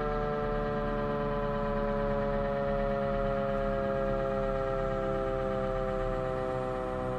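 Sterling M-10 8/16-port electromechanical tornado siren sounding its two-tone chord. The pitch slowly falls as the siren winds down near the end of its short alert test.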